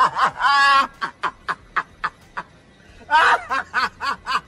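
A man laughing hysterically in a high-pitched cackle: a loud whoop at the start, then quick short bursts about four a second, with a second loud whoop about three seconds in.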